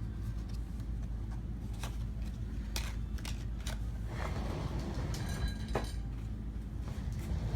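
Hands handling small parts: a few light clicks, then rustling about halfway through, over a steady low hum.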